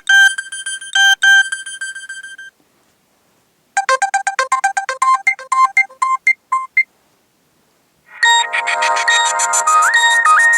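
Nokia 6230 mobile phone playing three short electronic ringtone and alert tones one after another through its loudspeaker. First comes a few ringing notes, then a quick run of notes about four seconds in. About eight seconds in a fuller polyphonic tune with chords begins.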